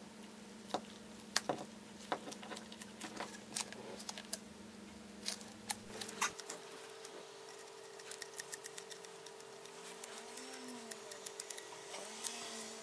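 Faint handling noises: scattered small clicks and taps as a rubber radiator hose and a puncture-repair patch are handled and worked on, over a low steady hum.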